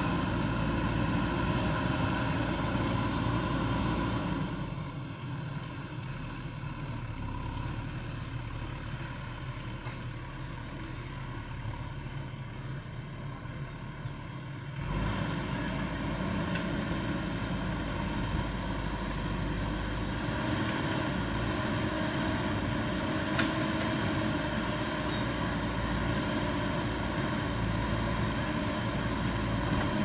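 JCB backhoe loader's diesel engine running steadily as the backhoe works. It drops to a quieter, lower running for about ten seconds from about four seconds in, then comes back up.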